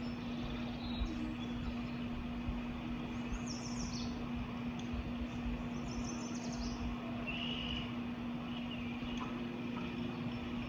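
Small songbirds chirping: two short trills of high, falling chirps a few seconds apart, then a brief lower call. Under them runs a steady background rumble with a low steady hum.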